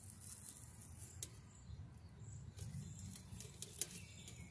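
Two faint sharp clicks, about a second in and near the end, as the metal hub and motor bracket of a box fan are worked loose, over a low steady rumble.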